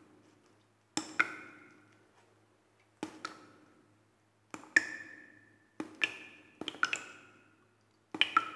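Sparse struck percussion: sharp taps, each with a short ringing tone, mostly in quick pairs or threes, a group every second or two.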